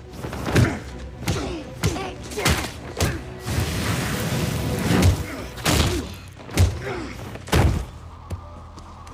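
Film fight sound effects: a rapid series of heavy punches and body thuds with strained grunts, and a steady rushing blast of heat-vision beams from about three and a half to five seconds in, the heaviest hits coming in the second half.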